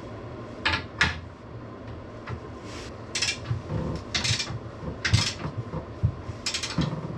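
Headset cups being knocked into a mountain bike's head tube without a press tool: about six irregular, sharp metallic knocks and clinks spread over a few seconds.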